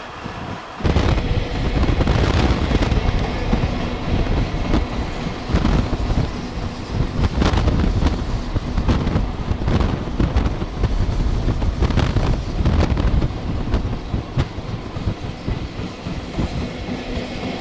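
JR Freight EF65 electric locomotive hauling Taki 1000 tank wagons, passing close by. It gets much louder about a second in, and the steady rumble carries frequent sharp wheel clicks and clatter.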